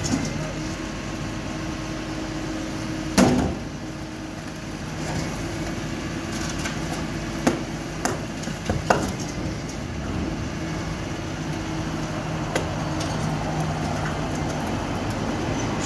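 Rear-loader garbage truck running, its hydraulics humming steadily as the bin is emptied and the compactor cycles, with one loud bang about three seconds in and a few sharper metal clanks in the middle.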